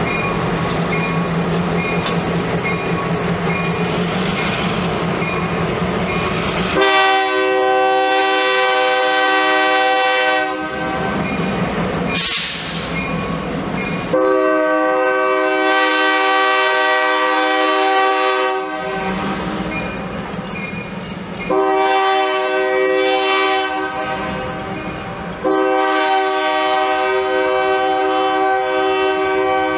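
East Penn Railroad diesel locomotive running as it rolls along, then its air horn sounds four long chord blasts with short gaps between, the warning for a grade crossing ahead. A crossing signal bell dings steadily underneath at the start.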